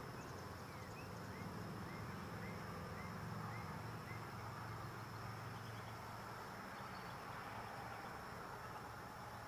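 Faint outdoor background: a steady low hum and a thin steady high tone, with short soft rising chirps about twice a second during the first few seconds.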